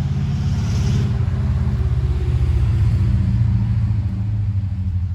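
Motor vehicle engine running close by, its low throbbing sound growing louder over the first few seconds and then easing off.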